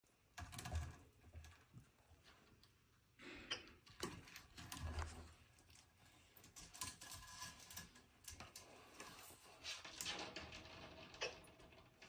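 Faint, irregular clicking and scraping of a black-throat monitor lizard's claws on a wooden ramp and the enclosure wall as it shifts and climbs, with two soft thumps, about a second in and again about five seconds in.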